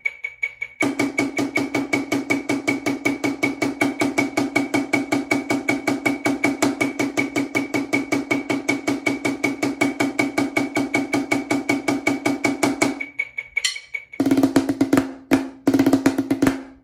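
Wooden drumsticks playing full strokes on a snare drum muted with a Quiet Tone practice pad: a fast, even stream of single strokes at 160 BPM, 16 on one hand then 16 on the other, stopping about 13 seconds in. A few louder separate hits follow near the end.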